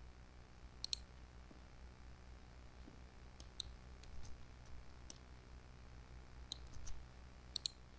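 Computer mouse clicking about ten times, single clicks and quick pairs scattered through, over a faint steady low hum.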